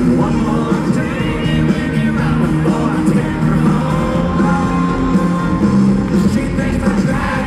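Live country-rock band playing loudly while a male singer sings into a microphone, recorded from within a stadium crowd.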